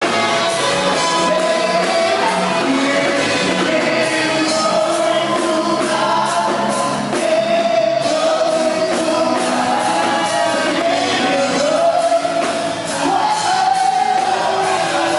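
Live worship music: a group of voices singing long held notes over a loud band accompaniment.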